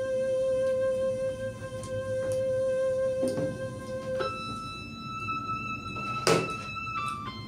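Background music of slow, held notes, the chord changing about four seconds in and again near the end. A few light clicks, and one sharper clink of a spoon against a plate about two-thirds of the way through.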